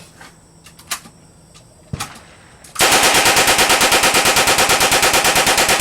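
A long burst of automatic gunfire, shots at about ten a second for some three seconds without a break, run until the magazine is empty. Two faint clicks come before it.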